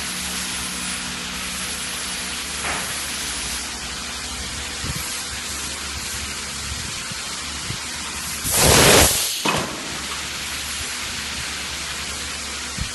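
A steady hiss, with a loud rush of compressed air from a muffin cup machine's pneumatic fittings lasting about a second, about two-thirds of the way through.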